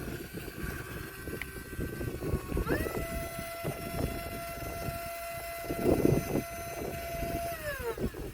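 Electric motor and gearbox of a radio-controlled scale rock crawler whining at a steady pitch. The whine rises about three seconds in, holds, then falls away just before the end, over low knocks and rumble.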